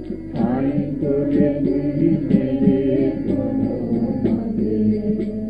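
Bengali devotional kirtan: voices singing together over steady held instrumental tones, with a sharp beat about once a second.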